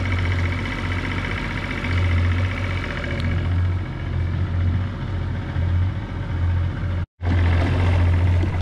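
Outboard motor on a small skiff running steadily under way, with a low steady hum and water and wind rushing past. The sound drops out for an instant about seven seconds in.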